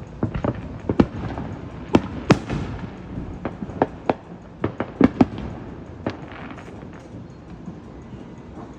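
Fireworks going off in an irregular string of sharp bangs and pops, some with a short echo, thinning out after about six seconds.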